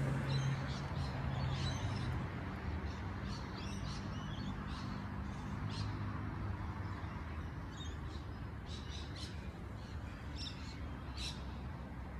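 Birds chirping with short, scattered calls, coming more often in the second half, over a low steady rumble.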